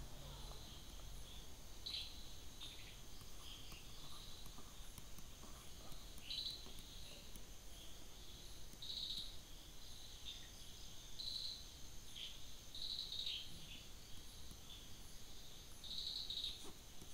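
Faint short high chirps from an animal in the background, coming irregularly every second or two, over a faint steady high whine.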